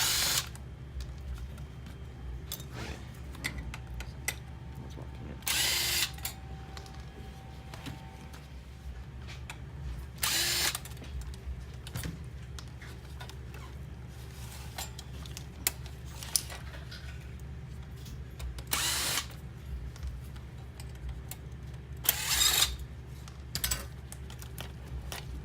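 Cordless electric screwdriver whirring in several short bursts of about half a second, backing out small Phillips screws from a circuit board. Light clicks of parts and screws come between the bursts.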